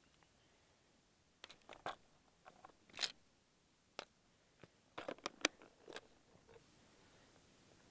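Plastic tackle box being handled: scattered small clicks and knocks as lures are picked through, then a quick run of sharper clicks about five seconds in as the lid is snapped shut.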